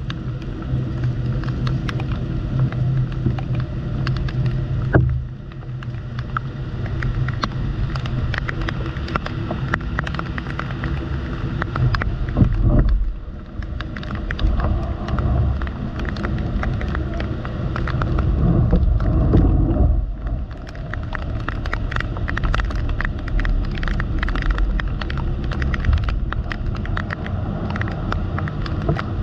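Rain falling, many drops ticking irregularly on the camera and nearby surfaces over a steady low rumble.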